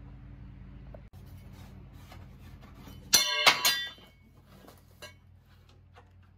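Aluminium speed square clinking against metal, two quick knocks that ring briefly about three seconds in. Before them a low steady hum, which cuts off as the clinks start.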